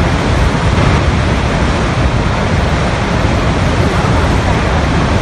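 Niagara Falls rushing: a loud, steady wash of falling water, strongest in the low end, with no breaks.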